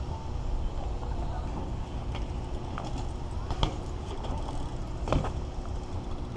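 Steady low rumble of road and traffic noise, with a few sharp clicks and ticks scattered through it.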